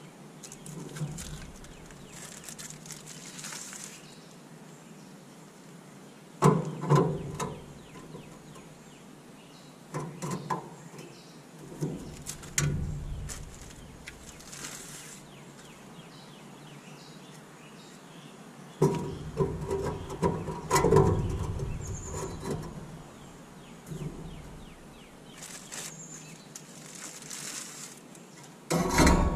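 Porcelain-coated steel heat plates being set into a gas grill over the burner tubes, with metal clanks and scraping. The clanks come in several clusters, the loudest about six seconds in and again around twenty seconds in.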